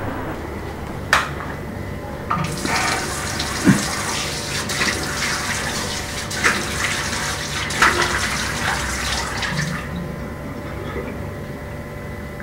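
Tap water running into a washbasin and splashing as a face is washed by hand. It starts about two seconds in and stops abruptly near ten seconds, with a sharp click just before it begins.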